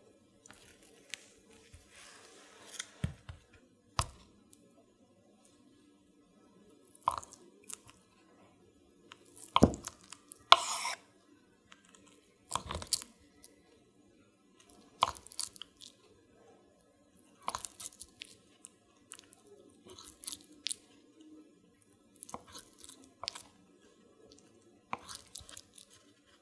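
Kitchen knife slicing through a ball of fresh mozzarella and tapping the wooden cutting board, one soft knock every two to three seconds. About a third of the way in comes a louder, longer rustle.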